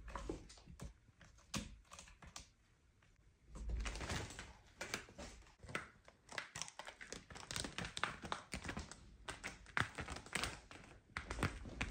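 Bengal cat clawing at and climbing a sisal-rope scratching post: a run of quick scratching strokes of claws on rope, mixed with a few dull knocks, busiest after the first few seconds.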